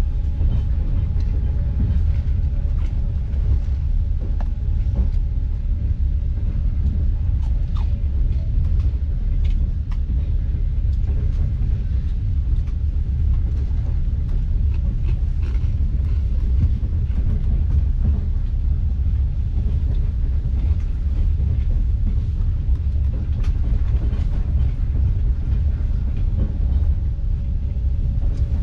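Steady low rumble of a moving passenger train heard from inside the carriage, with scattered faint clicks from the running gear.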